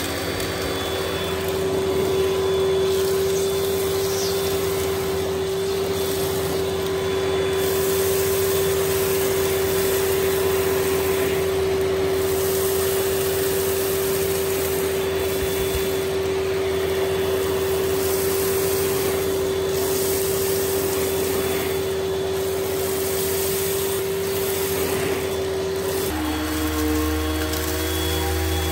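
Bagless upright vacuum cleaner running steadily, its motor giving a constant whine as its hose tool sucks up cornflakes from carpet. Near the end the whine changes to a different, deeper hum as the upright's floor head is used on the carpet.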